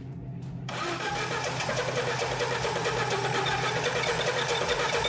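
Four-cylinder carbureted car engine, with a compression gauge fitted to each cylinder, being cranked and catching under a second in, then running with a steady even rhythm that grows a little louder.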